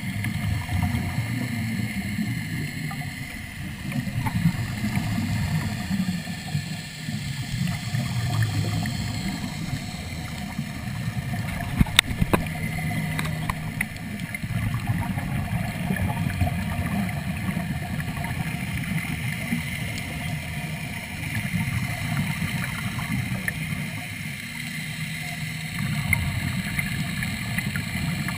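Underwater sound picked up through a GoPro housing: divers breathing through surface-supplied hookah (third-lung) regulators, the exhaled bubbles gurgling in surges every few seconds over a steady faint hum. A sharp click about twelve seconds in.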